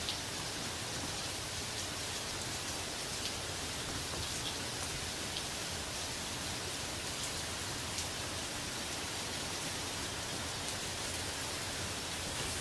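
Heavy rain pouring steadily, a dense even hiss, with the odd louder drop hitting close by.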